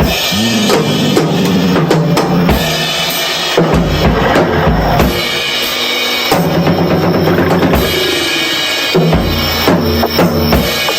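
Drum kit played as a solo, with bass drum and snare to the fore.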